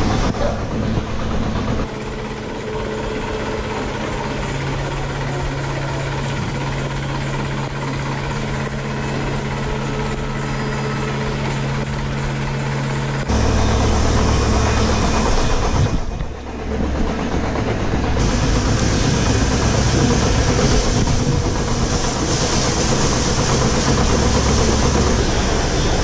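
Milking parlor machinery running: a steady mechanical drone with a low hum, which shifts abruptly in tone a few times.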